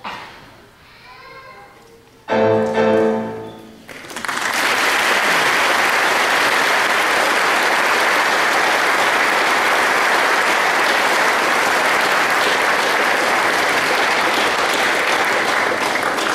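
A choir's short, loud final chord at the end of the piece, then audience applause that starts about four seconds in and stays steady.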